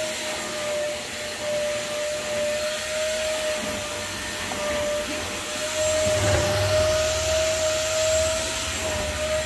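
Vacuum cleaner running steadily with a high motor whine, sucking rainwater out of a soaked car floor. A deeper rush joins about six seconds in.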